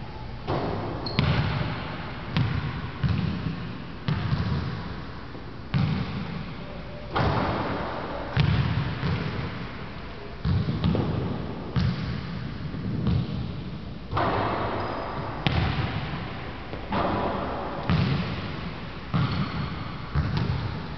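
Basketballs bouncing on a hardwood gym floor: irregular thuds, one every half second to second and a half, each ringing out in the echo of the large empty gym.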